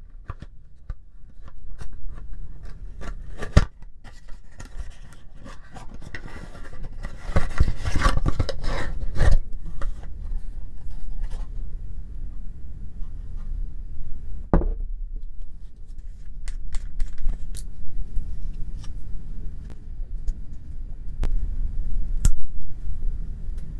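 Cardboard toothpaste carton being handled and opened and the plastic tube pulled out, with papery rustling and scraping that is busiest a few seconds in, and scattered sharp clicks and taps as the tube and its cap are handled.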